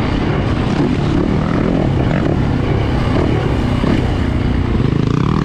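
Yamaha YZ450F dirt bike's four-stroke single-cylinder engine running under load, its revs rising and falling with the throttle.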